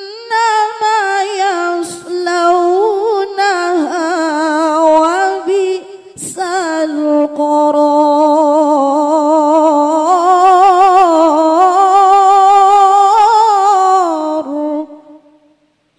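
A woman's voice reciting the Qur'an in the melodic, sung tilawah style over a microphone, with long ornamented phrases whose pitch wavers and turns. There is a short break for breath about six seconds in, then one long held phrase that fades out near the end.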